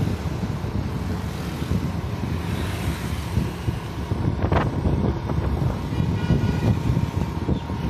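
Road traffic and rumbling wind on the microphone from a moving vehicle, with a short vehicle horn toot about four and a half seconds in.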